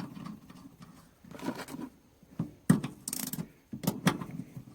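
Hands working a rubber hose into place among engine-bay parts: a few short scrapes and rustles with a sharp click or two.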